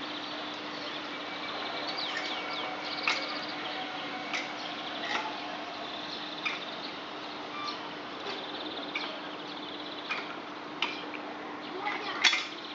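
Small songbirds chirping and trilling on and off in the trees, with a sharp call near the end, over a faint steady low hum of outdoor background.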